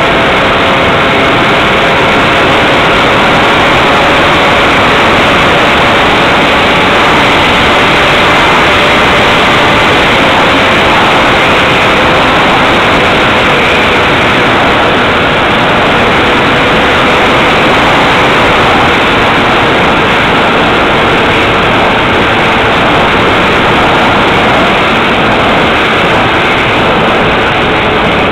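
Motor and propeller of a Multiplex Xeno electric RC flying wing in flight, heard through the onboard camera's microphone under heavy wind rush. A faint whine sits under the noise and sinks slowly in pitch.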